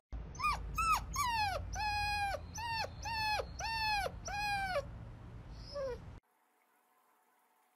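A puppy whining: a run of about eight high, pitched cries, each under half a second and dropping in pitch at the end, then one last faint cry. The sound cuts off about six seconds in.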